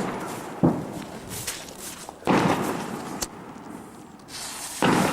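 Consumer fireworks going off: four sharp bangs about a second or so apart, each followed by a hissing, crackling tail that dies away.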